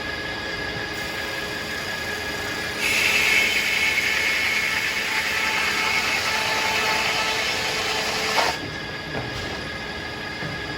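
Circular sawmill running, its blade cutting through a tulip poplar log. The louder, hissing cut starts about three seconds in and stops with a short knock after about five and a half seconds, leaving the mill running without load.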